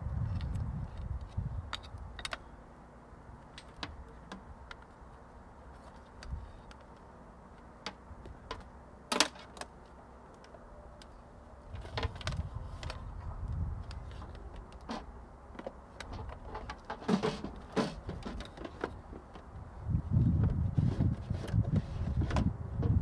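Scattered clicks, taps and rattles of cables and hardware being handled inside a plastic electrical enclosure, with one sharp click about nine seconds in. Irregular low wind rumbles on the microphone come and go, loudest near the end.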